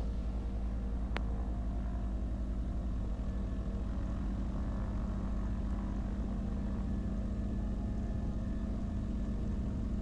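Piper PA-34 Seneca II's twin turbocharged Continental six-cylinder engines running steadily at low taxi power, a constant low propeller drone heard inside the cockpit. There is one faint click about a second in.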